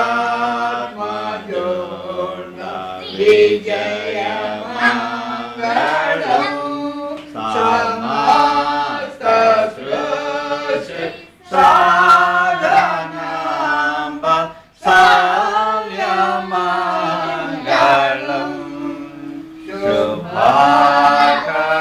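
Several voices singing together in unison, a chant-like song with long held notes and short breaks between phrases.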